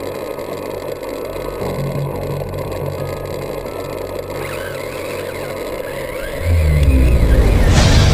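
Traxxas Summit RC truck driving, its electric motor and drivetrain running steadily. Loud heavy-metal music cuts in about six and a half seconds in.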